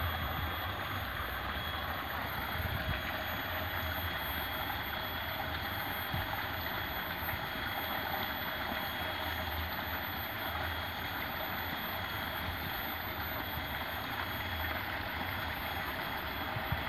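Water pouring over a small concrete weir into a shallow stream pool, a steady rush of water with a low rumble underneath.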